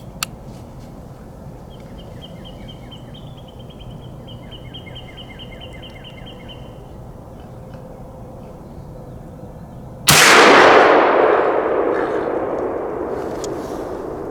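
A single shot from a Smith & Wesson .44 Magnum handgun about ten seconds in, sudden and very loud, ringing out and fading slowly over several seconds. Before it, a bird calls a quick run of repeated high notes.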